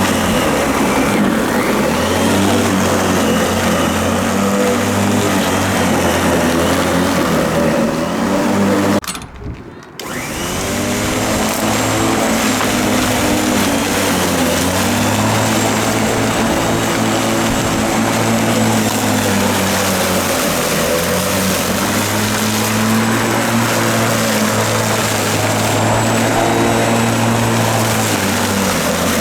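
Greenworks 14-inch corded electric lawn mower's 9-amp motor and blade running while cutting grass, the pitch sagging now and then under load. About nine seconds in it cuts out for a moment, then spins back up.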